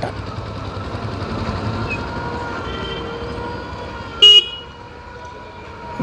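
Steady vehicle engine and road noise, then one short, sharp horn toot about four seconds in; the running noise falls a little after it.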